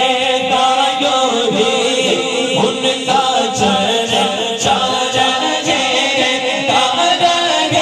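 A man singing a naat, an Urdu devotional poem, into a microphone in long melodic lines.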